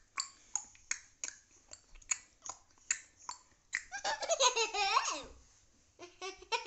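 A run of sharp clicks, about two or three a second, then about four seconds in a young child's high-pitched laugh with a wavering pitch lasting about a second and a half. A few more clicks come near the end.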